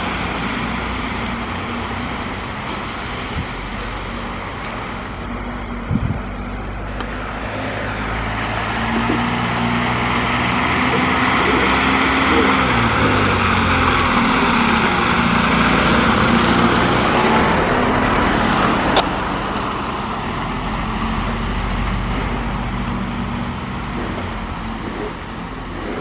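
FDNY ladder truck's diesel engine approaching and passing close on a slushy street, its tyres hissing through slush. The engine note swells in the middle and drops as the truck goes by. There is a single sharp click about three-quarters of the way through.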